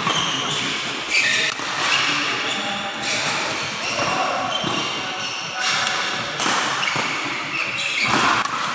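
Badminton doubles rally: racquets striking the shuttlecock and players' shoes squeaking and thudding on the court mat, echoing in a large hall, with voices in the background.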